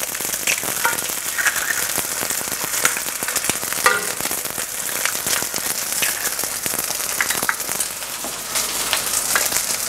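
Rice and salted fish frying in hot oil in an enameled cast-iron skillet: a steady sizzle with dense crackling. Raw eggs are cracked into the pan to fry, with a sharp tap about four seconds in.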